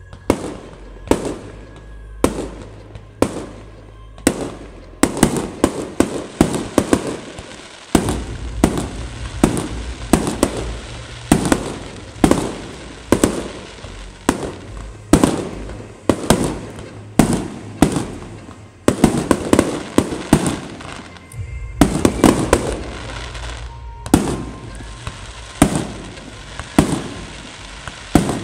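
Fireworks display: aerial shells bursting in quick succession, one to two sharp bangs a second, each trailing off in a rumbling echo, over music in the background.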